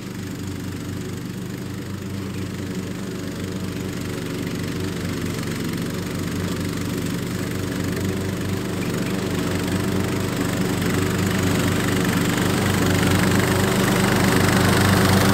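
MTD riding lawn tractor running steadily while mowing deep grass, growing louder as it drives closer.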